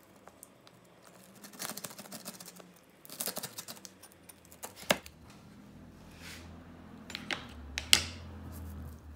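Pizza-cutter wheel rolling through a baked cheese-topped crust on a wooden cutting board: a few short runs of crisp crackling, then several sharp single clicks.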